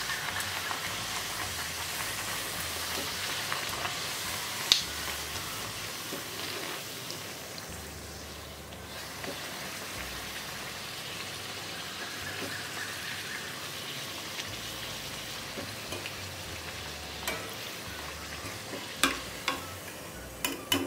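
A puri deep-frying in hot oil in a steel kadai: a steady sizzle that eases off partway through. A slotted steel spoon clinks sharply against the pan once about five seconds in and several times near the end as the puri is lifted out.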